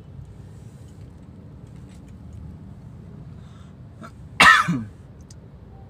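A person gives one short, loud cough, clearing the throat, about four and a half seconds in, over the steady low rumble of a moving car's cabin.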